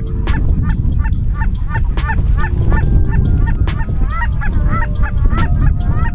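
Geese honking and clucking: quick, repeated short calls, three or four a second, overlapping with a few longer held notes, over a steady low rumble.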